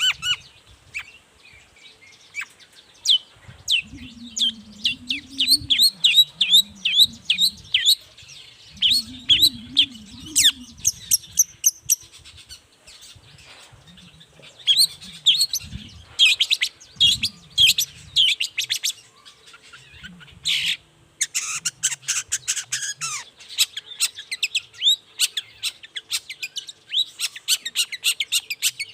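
Long-tailed shrike (cendet) singing: rapid runs of sharp, falling chirps in bursts with short pauses, with a lower warbling sound beneath in places.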